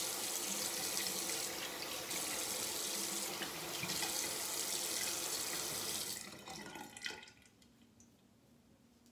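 Bathroom sink tap running water into the basin, then shut off about seven seconds in.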